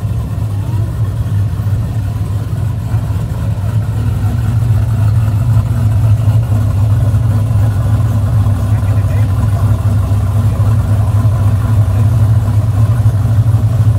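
A vehicle engine running steadily close by, with a strong low hum that grows a little louder after a few seconds.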